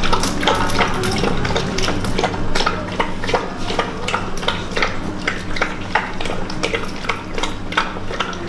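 Pit bull-type dog lapping milk from a plastic basin: quick wet laps, about three a second, steady throughout.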